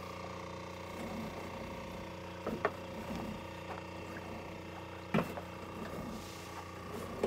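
A small engine on a fishing boat running steadily at one even pitch, with a few sharp knocks as the wet trap net is hauled in over the side.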